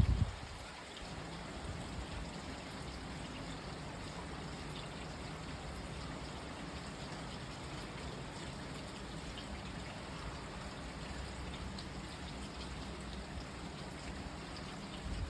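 Steady rain: an even hiss with a few faint drop ticks, opening with a brief low thump.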